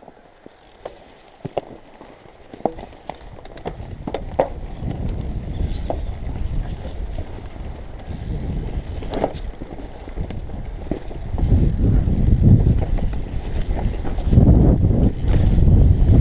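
Mountain bike riding down forest singletrack. A few sharp clicks and rattles come from the bike at first, then wind buffets the camera's microphone along with the tyres' rumble. The noise builds as speed rises and is loudest near the end.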